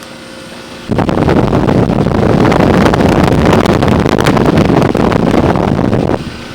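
Loud wind rumble on the microphone from the air blown out of a Trane XL20i heat pump's condenser fan, starting suddenly about a second in and cutting off near the end.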